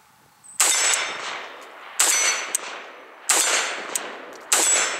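Zastava M70 O-PAP AK-pattern rifle in 7.62x39 firing four semi-automatic shots, about a second and a quarter apart. Each shot is followed by an echo that dies away over about a second.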